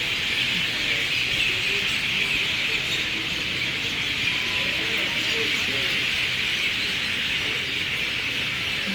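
A steady, dense chorus from a very large flock of birds calling together from their roost in a banyan tree, so many voices overlapping that they merge into one continuous chattering din.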